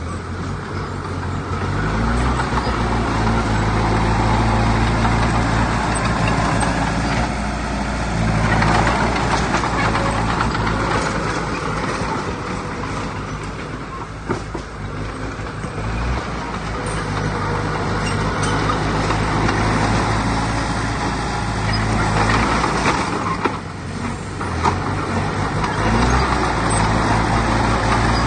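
Heavy diesel earthmoving machinery running hard, the engine note rising and falling as the load changes.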